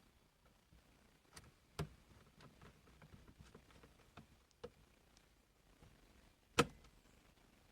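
Car console trim being handled and fitted back in place: scattered light clicks and taps, with two sharper knocks, one about two seconds in and one near the end.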